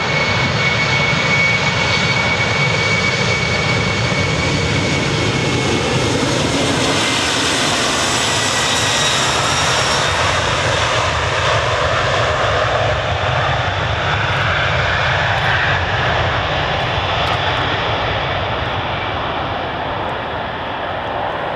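Boeing 747-400's four jet engines at takeoff thrust as it rolls down the runway: a high whine over a loud steady roar, dropping in pitch as it goes past and slowly fading as it draws away.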